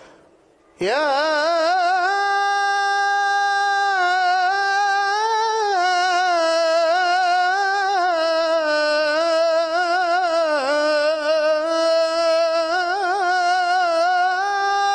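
A man's solo unaccompanied voice singing an Arabic Islamic devotional chant (inshad): one long melismatic note on the vowel 'yā', swooping up to pitch about a second in and then held unbroken, with ornamented turns and wavering around the middle.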